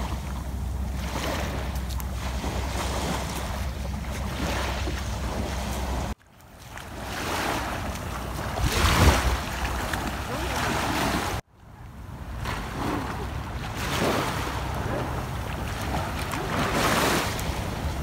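Small sea waves washing and lapping on a sandy shore, swelling and ebbing, with wind rumbling on the microphone. The sound cuts out abruptly twice and fades back in.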